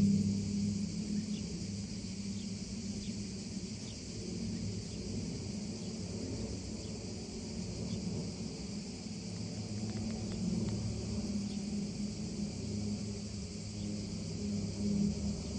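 A steady, high-pitched insect chorus over a continuous low rumble.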